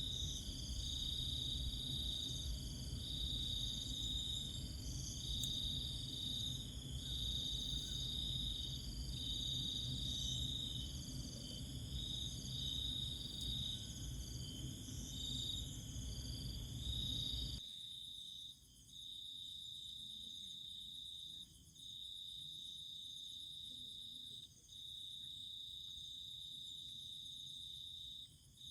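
Insects trilling in a steady high-pitched chorus, at first under a low rumbling background noise that cuts off abruptly about two-thirds of the way in. After that the trill goes on alone, breaking off briefly about every three seconds.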